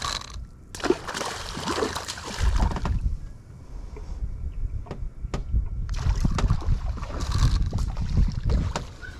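Water splashing and sloshing in two long spells of bursts, about a second in and again about six seconds in, as a hooked ladyfish thrashes at the surface beside the boat, over low rumble on the microphone.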